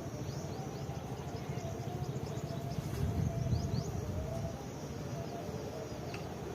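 Outdoor ambience: many quick, high, downward-sliding bird chirps over a steady high-pitched insect drone, with a low rumble that swells about halfway through.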